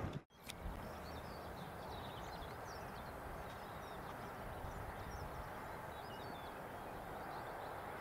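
Quiet rural outdoor ambience: small birds chirping on and off over a steady soft background hiss. Just after the start a louder, even noise cuts off abruptly.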